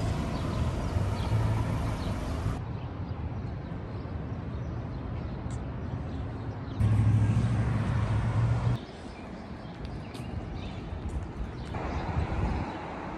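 City street ambience: a steady hum of traffic with no voices. The background noise changes abruptly several times as short clips are cut together, and it is loudest and deepest for a couple of seconds in the middle.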